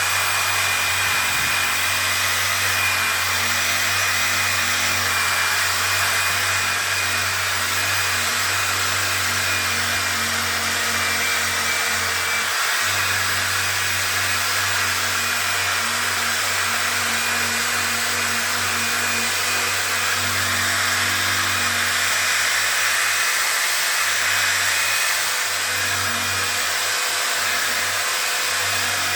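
Handheld electric sander running continuously on a plastic headlight lens: a steady motor whine over a broad hiss, with a brief dip about halfway through.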